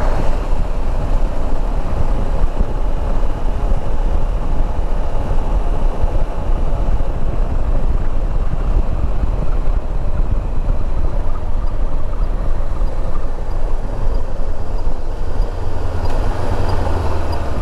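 Steady wind rush and road noise of a Honda CB500X motorcycle under way, with the low drone of its parallel-twin engine beneath.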